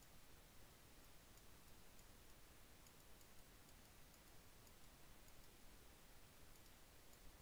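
Faint, irregular computer mouse clicks, a dozen or so, over near-silent room hiss, as the clone stamp tool is dabbed on the image in Photoshop.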